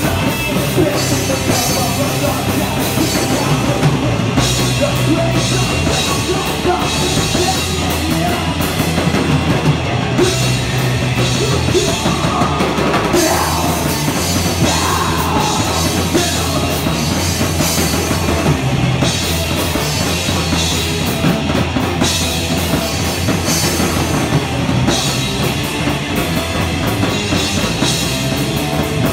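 A rock band playing a song live, with the drum kit prominent: steady cymbal strokes over a bass line.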